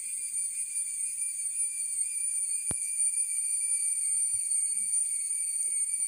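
Steady, high-pitched drone of an insect chorus, holding one pitch without a break. A single sharp click comes a little before the middle.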